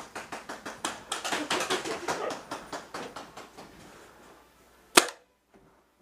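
Running footsteps, a rapid even rhythm of several steps a second that fades off, then one sharp, loud crack about five seconds in.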